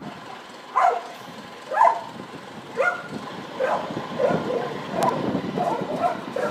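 A dog barking: three single barks about a second apart, then a quicker run of shorter barks.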